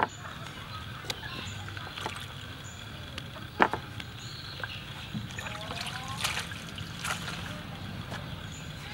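Wet bell peppers being set into a wooden bowl by hand: a few soft knocks and handling sounds, the sharpest a few seconds in, over a steady low hum.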